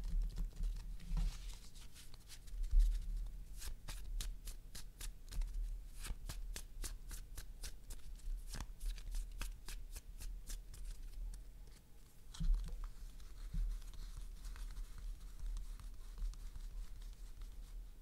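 A deck of playing cards being shuffled by hand, the cards slapping together in a quick run of light clicks, about four a second, through the middle of the stretch.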